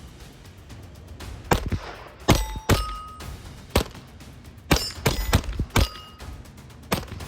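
A .22 LR Hammerli Forge H1 pistol firing a slow string of about eight shots, several of them followed by the short ring of a hit steel plate.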